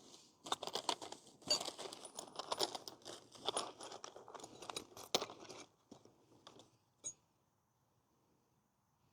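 Rustling and clinking of objects being handled, dense and irregular for about five seconds, then a few scattered clicks and one sharp click about seven seconds in.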